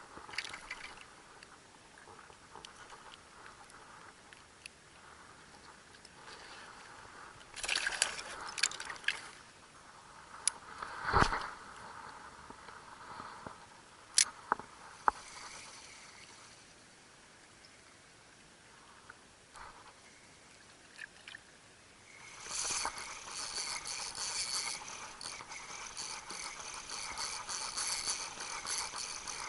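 Scattered knocks and clicks of handling tackle, then, about two-thirds of the way in, a Daiwa 13 Certate 2004CH spinning reel cranked fast, a steady whir of the retrieve that carries on to the end.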